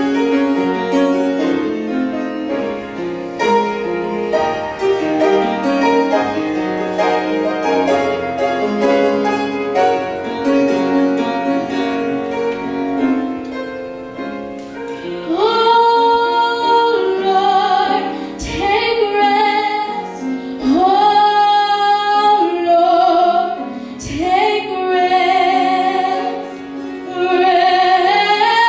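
Piano playing a slow passage alone; about halfway through, a woman's solo voice comes in singing long, sliding phrases over the piano.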